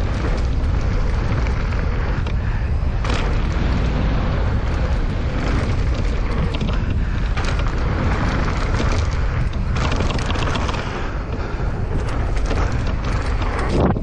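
Wind rumbling on the microphone of a camera riding along on a mountain bike going down a dirt trail, with tyre noise and scattered clicks and rattles from the bike.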